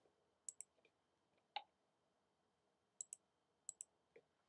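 Near silence broken by a few faint, short clicks, mostly in quick pairs, with one soft tick about a second and a half in.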